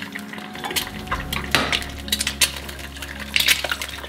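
Kitchen clinks and knocks over eggs frying in a pan on a gas stove, as a second egg is cracked into the pan. Near the end a glass lid clinks down onto the pan.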